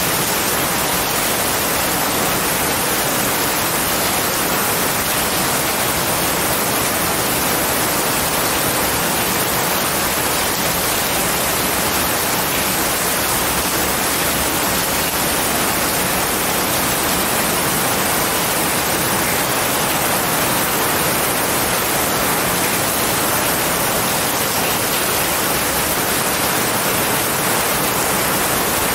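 Heavy rain falling steadily on a pine forest, a constant even hiss.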